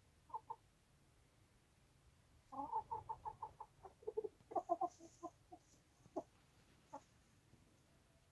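Domestic chickens clucking: two short clucks, then about a second later a fast run of clucks lasting about three seconds, then two single clucks.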